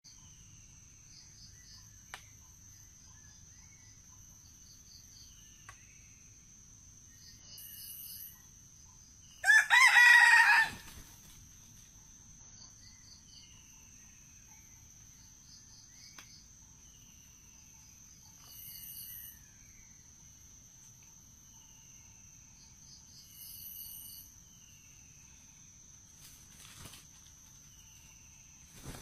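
Red junglefowl rooster crowing once, about ten seconds in: a short, loud crow. Behind it runs a steady high insect drone with scattered faint bird chirps.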